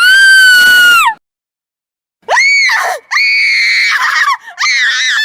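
A girl's high-pitched horror screams: one long scream held for about a second, a brief silence, then three more screams in quick succession, the last one wavering.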